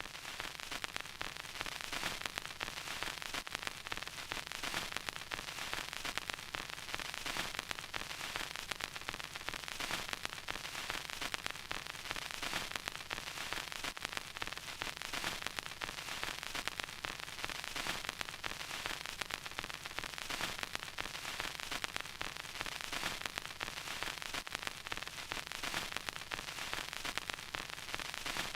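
Vinyl record crackle: a steady surface hiss with dense, irregular pops and clicks.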